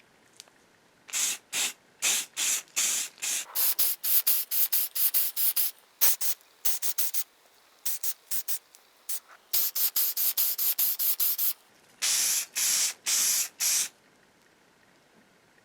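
A sprayer hissing in many short bursts in quick succession, with brief pauses between runs and four longer bursts near the end.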